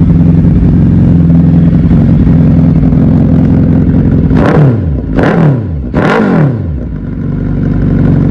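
Suzuki Hayabusa's 1340 cc inline-four idling loudly through an aftermarket slip-on exhaust. About halfway through the throttle is blipped three times in quick succession, each rev rising and falling back, before it settles to a steady idle again.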